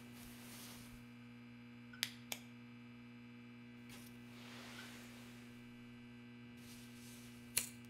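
Steady low electrical hum, with two sharp clicks in quick succession about two seconds in, a soft rustle around the middle and another sharp click near the end, as small objects are handled.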